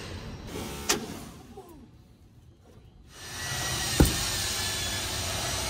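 Oxy-fuel cutting torch being lit: gas hisses on about three seconds in, a sharp pop about a second later as it ignites, then the steady hiss of the burning torch.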